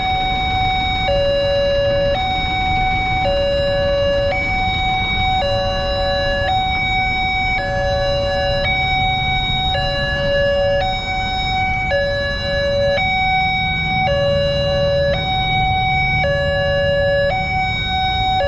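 Electronic two-tone warning alarm of a railway level crossing, alternating between a higher and a lower tone about once a second: the signal that a train is approaching and the barriers are down. Idling traffic rumbles underneath.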